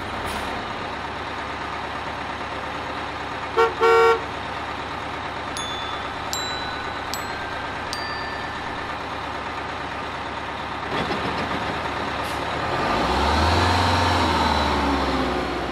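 A bus engine sound effect running steadily, with two short horn toots about three and a half seconds in. A few high pings follow, and near the end the engine note swells as the bus pulls away.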